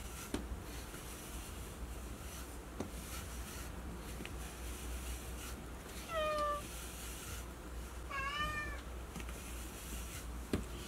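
Domestic cat meowing twice, short high meows about six and eight seconds in: the first falls in pitch, the second rises and then falls.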